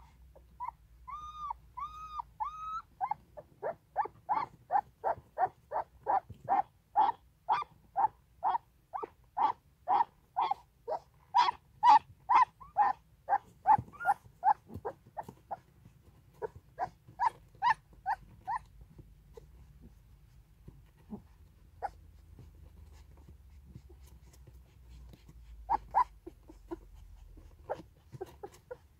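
Nursing puppies squeaking and whining. A few drawn-out whines come first, then a long run of short, high squeaks at about three a second that thins out after about fifteen seconds, with a couple more near the end.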